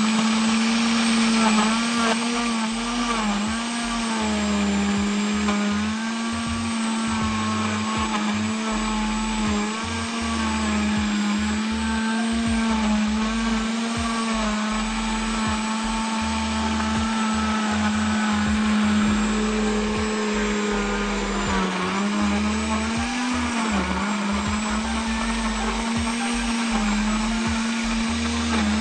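Countertop blender motor running steadily as it blends Oreo cookies and vanilla ice cream into a shake. The hum wavers slightly in pitch throughout and sags briefly about two-thirds of the way through before picking back up.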